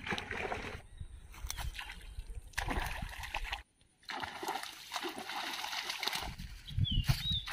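Snakehead striking at bait on the surface, the water splashing several times.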